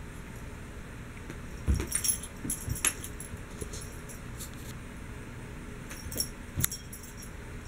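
A cat pouncing on and batting at a walking cane: irregular soft thumps and knocks with light clicking, in two flurries, one from a little under two seconds in and another near the end.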